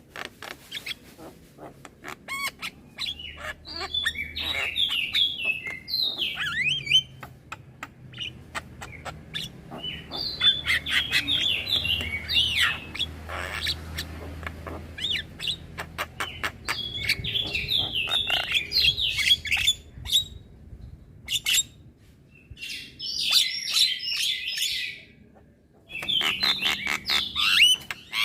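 Young Javan myna chattering in fast runs of squeaky, scratchy notes mixed with sharp clicks, broken by a couple of short pauses.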